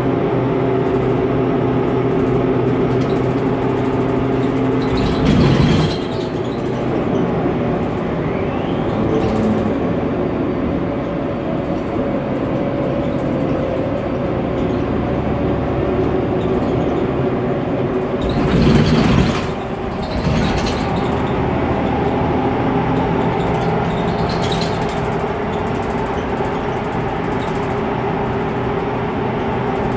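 Interior noise of a Mercedes-Benz Conecto NGT city bus under way: its M 936 G natural-gas engine and running gear make a steady drone whose pitch shifts a couple of times, with road noise. Two short, loud noisy bursts stand out, about five seconds in and again a little before the twenty-second mark.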